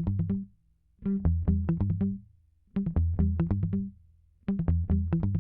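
Intro music: short phrases of quick plucked notes over a bass line, repeating with brief pauses between them.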